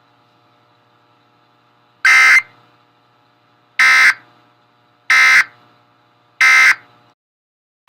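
Emergency Alert System end-of-message data signal: four short, shrill bursts of digital data tones, about a second and a half apart, marking the end of the alert. A faint steady hum runs under them and stops just after the last burst.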